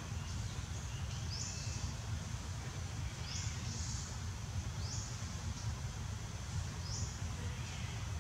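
Outdoor ambience: a steady low rumble, over which a bird gives a short, high call about every two seconds.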